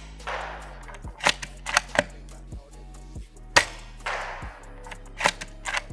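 ARES Kar98K spring-powered bolt-action airsoft rifle being fired and cycled: a quick run of bolt clicks, a single sharp shot about three and a half seconds in, then the bolt clicking again near the end. Background music plays underneath.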